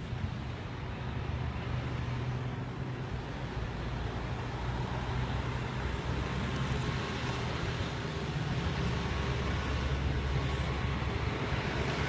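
Road traffic: a motor vehicle's engine humming low and steady, slowly growing louder.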